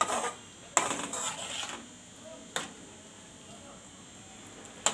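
A metal spatula scraping and clinking against a metal pot while stirring thick boiled chana dal: a scrape at the start, a longer scrape about a second in, and a sharp clink midway, then only soft stirring.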